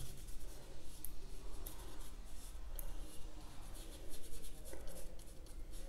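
Paintbrush bristles scrubbing and dabbing paint onto paper in short, irregular scratchy strokes.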